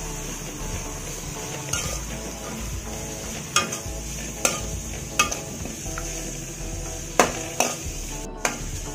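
Shredded cabbage, carrot and beans sautéing in oil in a steel kadai with a steady sizzle, while a steel ladle stirs and scrapes the pan, knocking against it with sharp clinks about seven times.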